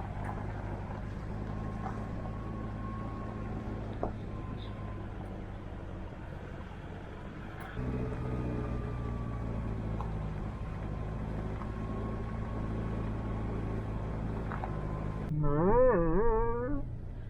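A 4WD's engine running steadily while driving, stepping up a little in loudness about eight seconds in. Near the end it gives way to music with a singing voice.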